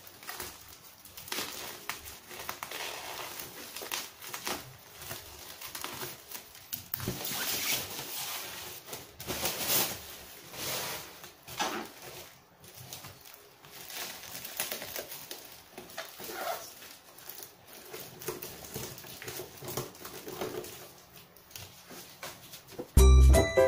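A cardboard parcel being opened by hand: scissors snipping packing tape, then irregular scraping and crinkling of cardboard flaps and bubble wrap. Music starts about a second before the end.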